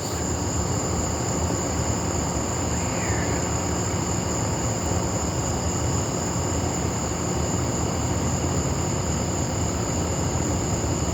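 Steady night-time outdoor ambience: a continuous high-pitched insect drone over an even low rumble. There is no thunder, since the heat lightning flashes silently.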